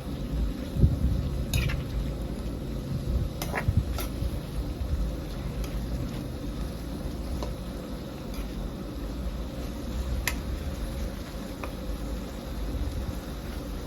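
Food sizzling while it is cooked and stirred, with a steady low rumble underneath and a few light clicks of a utensil against the pan.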